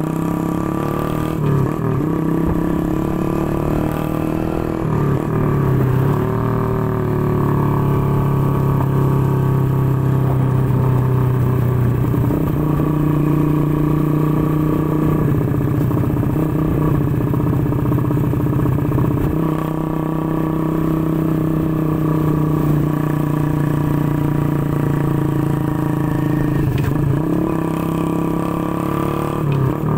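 Motorcycle engine running at road speed, its pitch stepping up and down a few times with the throttle, over a low wind rumble on the microphone.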